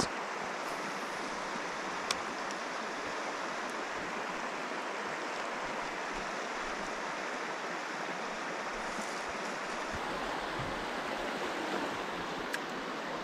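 Steady rushing of a mountain trout stream's flowing water, with two faint sharp clicks, one about two seconds in and one near the end.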